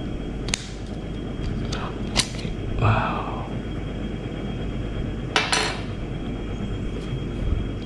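Battery end cap of a Ledlenser MH5 headlamp being unlocked, twisted off and handled: a few sharp clicks and a short scrape, with a double click about five and a half seconds in, over a steady low background hum.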